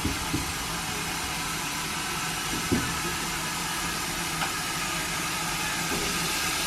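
Steam locomotive running slowly as it backs onto its carriages, giving a steady hiss over a low hum, with a few light clicks.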